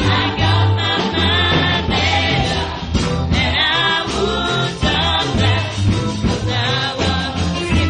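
Live gospel praise-and-worship music: a group of singers at microphones over a band with electric guitar and a strong bass line, loud and unbroken.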